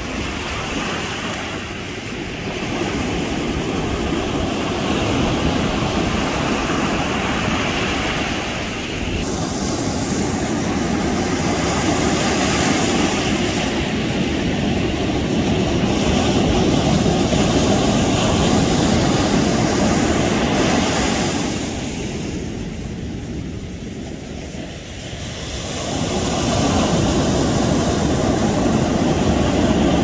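Ocean surf breaking on a sandy beach: a steady rush of waves and foam that swells and eases. It dips for a few seconds about two-thirds of the way through, then builds again.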